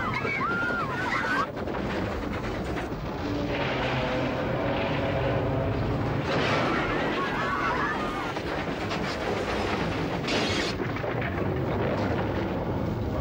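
Steam train crash on a film soundtrack: the locomotive and carriages ramming a barricade of logs on the track, a continuous rumbling, crashing din. Shrill cries come at the start and again about six seconds in, and a sharp crash about ten seconds in.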